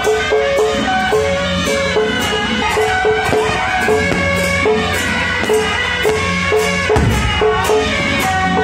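Traditional festive music with a steady beat of drums and cymbals under a repeating melody. There is a low thump about seven seconds in.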